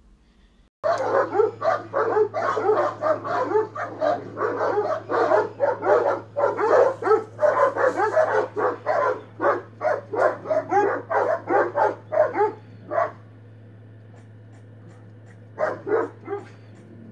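Two dogs barking at each other through a metal gate: rapid, overlapping barks that start about a second in and run for about twelve seconds, then stop. A low steady hum sits underneath, and a few more barks come near the end.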